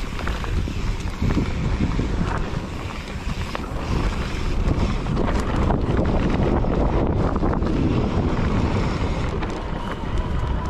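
Wind buffeting the microphone as a mountain bike rolls fast down a dirt singletrack, with a steady low rumble from the tyres and scattered clicks and rattles from the bike over bumps.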